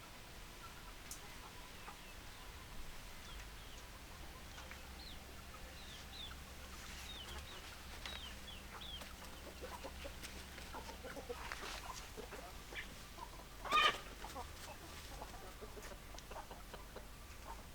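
Chickens clucking, with short, scattered calls. A run of quick high chirps comes in the middle, and one loud, brief squawk comes near the end.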